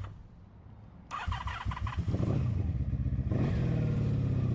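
1983 Honda Sabre's V4 engine being cranked on the electric starter, pausing for about a second, cranking again, then catching about two seconds in and running, louder and steady from a little past the middle. It is a hard hot restart that the owner puts down to the engine almost vapor locking.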